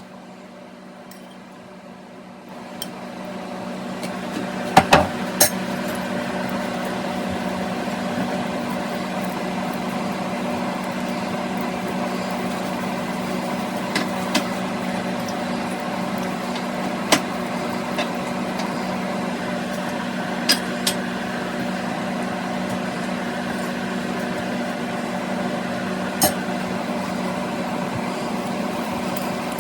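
A steady electric motor hum, like a kitchen appliance, that builds up over the first few seconds and then holds even. A few sharp clicks and taps sound over it.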